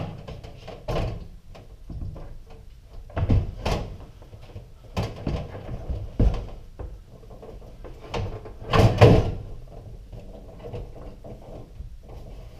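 Broan stainless steel range hood knocking and scraping against the cabinet as it is pushed up into a snug fit. A series of irregular clunks and thumps with rubbing in between, the loudest about nine seconds in.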